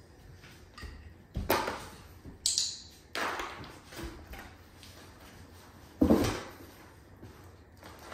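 Cardboard box being knocked and scraped as a dog noses around inside it: a few sharp knocks and rustles, the loudest and deepest about six seconds in.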